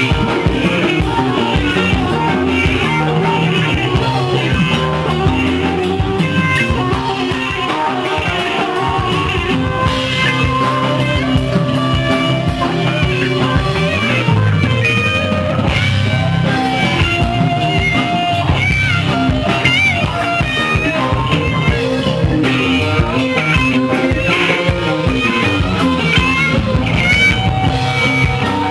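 Live rock band jamming: electric guitar playing lead lines, with some bent notes, over drums.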